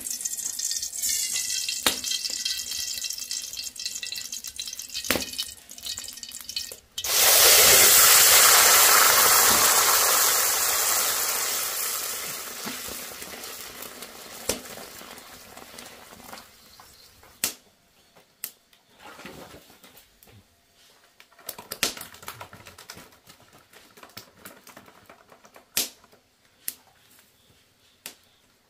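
A soft hiss of liquid with scattered clicks, then about seven seconds in a loud rushing hiss starts suddenly and fades slowly over about ten seconds, followed by occasional clinks and knocks.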